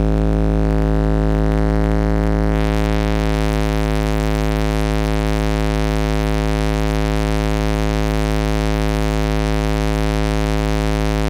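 Car subwoofers, driven by a Sundown SAZ-3500D amplifier at full volume, play one steady, very loud low bass test tone for an amplifier power (clamp) test. The tone is thick with buzzy overtones, and the buzz changes character about three seconds in. The run measured about 4,480 watts at 62 volts.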